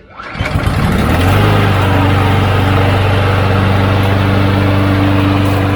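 Husqvarna all-wheel-drive walk-behind lawn mower engine starting, catching within about a second and settling into a steady run. It fires and keeps running on its freshly cleaned carburetor after two years unused.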